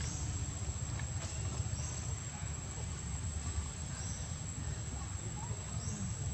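Outdoor ambience: a steady, high-pitched insect drone over a low rumble, with a few faint high chirps.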